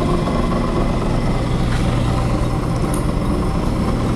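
AMMCO 7000 disc brake rotor lathe running just after being switched on: a steady electric motor hum with a strong low tone.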